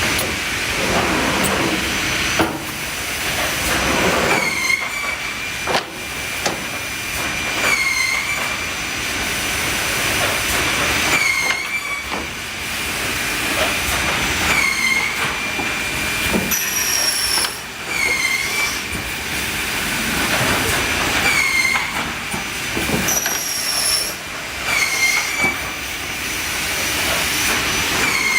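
Woodworking production line for drawer sides running: a high steady whine that dips briefly in pitch about every three and a half seconds, over a hiss of air and scattered clunks of parts being moved.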